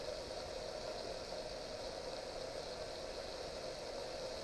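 Vegetables frying in a wok on high heat, a faint steady sizzle.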